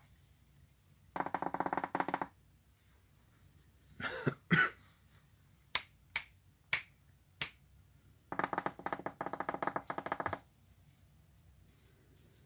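A person calling a dog with mouth and hand sounds: a buzzing, trilled call of about a second, repeated near the end, with a couple of short squeaky calls and four sharp finger snaps in between.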